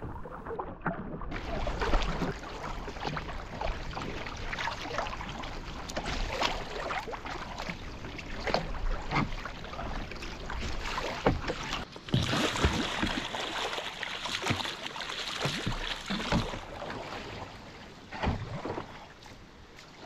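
Sea kayak paddle strokes splashing in the water, with water washing along the hull. The splashes come at an irregular pace over a steady hiss of water, which turns brighter for a few seconds past the middle and then quieter near the end.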